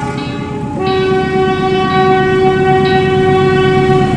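Locomotive air horn sounding one long, steady chord-like blast that starts about a second in and stops near the end, over a low rumble.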